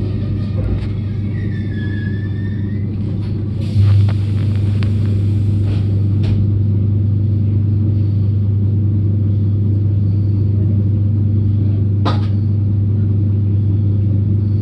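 Steady low rumble of a moving vehicle, which gets louder about four seconds in, with a few sharp clicks and knocks over it, the clearest about twelve seconds in.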